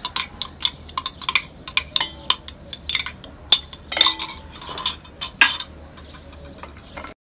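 Steel spoon scraping and clinking against a glass bowl as mango pulp is scraped out into an aluminium pot: quick, irregular clinks that die away about six seconds in.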